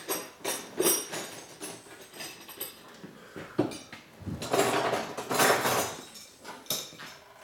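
Metal tools and parts clinking and knocking during hands-on work on a motorcycle, a few separate clinks, then about a second and a half of continuous clattering just past halfway.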